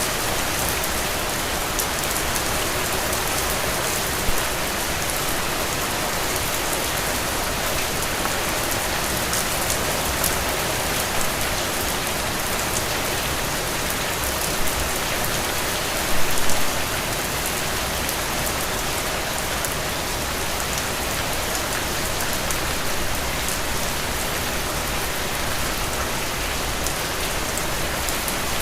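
Steady heavy rain falling on a surface, a dense even hiss with scattered drop ticks and a few brief louder patters, the biggest a cluster of knocks about sixteen seconds in.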